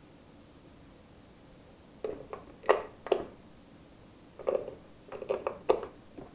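AA batteries being pressed into the plastic battery holder of a Cheerson CX-20 radio controller: short plastic clicks and knocks in two clusters, about two seconds in and again about four and a half seconds in.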